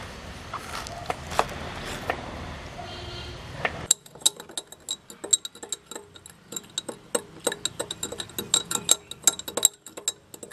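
A knife chops pineapple on a wooden board, a few separate knocks. About four seconds in it gives way to many quick, ringing clinks of glass tumblers knocking together as they are handled.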